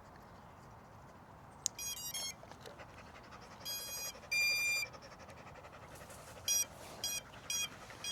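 Short electronic beeps from FPV drone gear being powered up for flight: a few tones, one held longer, then a run of regular beeps about twice a second near the end.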